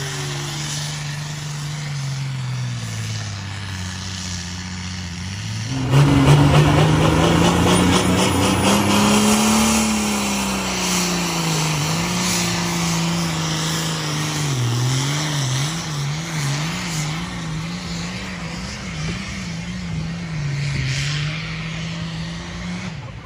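Diesel pulling tractors running at full throttle, dragging a weight-transfer sled under heavy load, with thick black exhaust smoke. The engine note gets louder about six seconds in, climbs and then sags, and wavers quickly up and down for several seconds later on.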